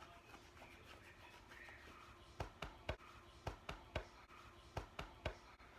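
Quiet room tone. From about two and a half seconds in comes an irregular run of about a dozen light, sharp clicks and taps, typical of a phone being handled while it records.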